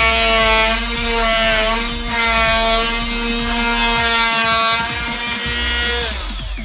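Dremel Multi-Max oscillating multi-tool running under load as its blade undercuts a wooden door jamb, a steady high buzz whose pitch sags now and then as the blade bites. It stops about six seconds in.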